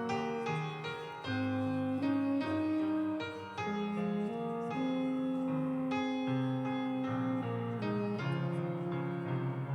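Instrumental keyboard music, slow held chords that change every second or so.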